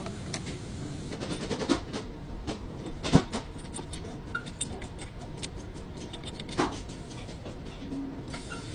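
Irregular clicks and knocks over a low background, the sharpest about three seconds in and another about six and a half seconds in.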